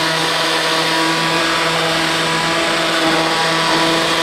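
Electric power tool running at a steady speed, its motor giving a constant whine.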